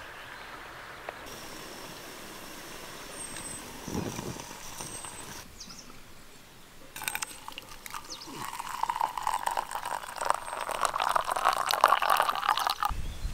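Coffee poured in a thin stream into an enamel camping mug, a splashing pour that starts about halfway through, grows louder and stops abruptly near the end.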